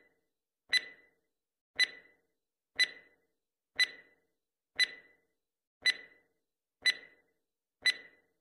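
Countdown timer sound effect: a sharp tick with a brief ringing tone, repeating evenly about once a second.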